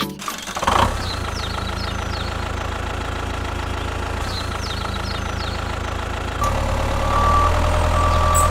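A vehicle engine idling steadily, starting about a second in and growing louder with a higher steady tone about six seconds in.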